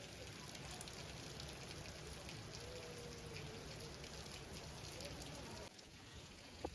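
Steady rain falling, a dense patter of drops that drops off abruptly near the end.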